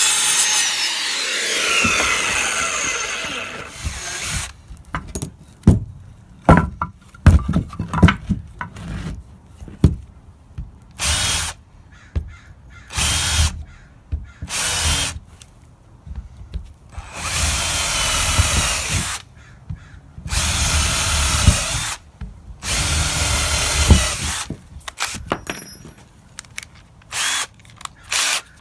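Corded circular saw finishing a cut through a 2x4 and spinning down, its whine falling in pitch over the first few seconds. Then a cordless drill boring pilot holes into 2x4 lumber in a series of bursts of one to two seconds, with sharp clicks and knocks of handling in between.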